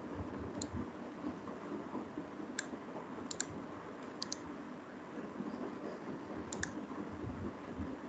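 Computer mouse clicking, about eight sharp clicks, several as quick double clicks, over a steady low background noise.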